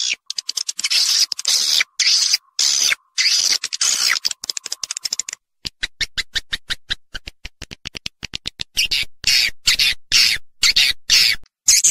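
Swiftlet lure-call recording: bursts of high, twittering swiftlet chirps cut apart by clean silent gaps. There is a rapid run of sharp clicks in the middle, after which the chirping returns.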